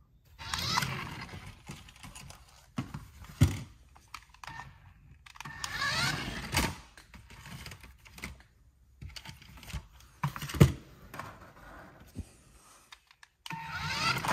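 A hard plastic remote-control toy race car being handled up close: plastic rubbing and rattling, with a few sharp clicks and knocks, the loudest about three and a half, six and a half and ten and a half seconds in.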